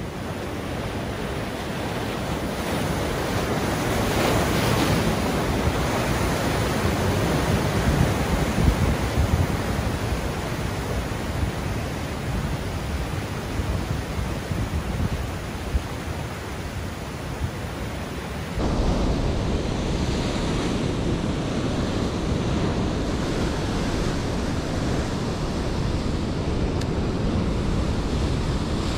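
Ocean surf breaking and washing over rocks, with wind buffeting the microphone. The rush swells and eases with the surges and changes abruptly about two-thirds of the way through.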